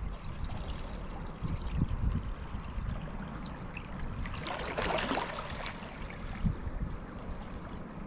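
Small sea waves lapping and washing over a submerged boat ramp and rocks. A louder fizzing wash comes about halfway through, then it settles back.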